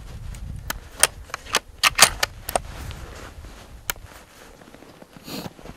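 A run of sharp, irregular clicks and ticks, about a dozen in the first four seconds and loudest about two seconds in, over a low rumble of wind on the microphone, then a brief swish near the end.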